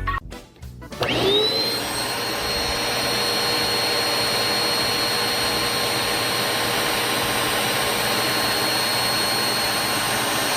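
A vacuum cleaner switches on about a second in, its motor whine rising quickly and then settling into a steady running noise.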